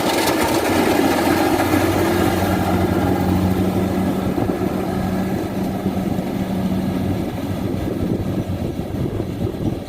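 Rice combine harvester's engine running steadily, a constant mechanical drone that slowly gets a little quieter toward the end.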